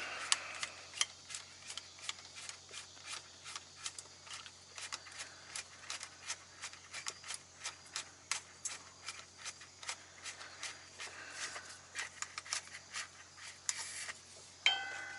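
Small irregular clicks and light scrapes of hand tools and metal parts being handled on a bench, about three or four a second, over a steady low hum. Near the end a steady pitched tone starts.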